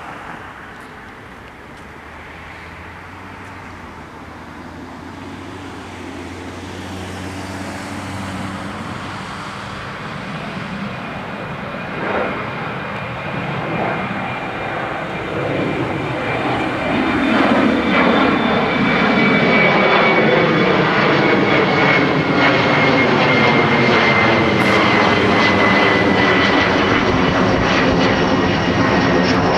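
McDonnell Douglas MD-11 cargo jet on approach, its jet engines growing steadily louder as it comes in and passes close overhead. Over the last dozen seconds a high fan whine slides slowly down in pitch.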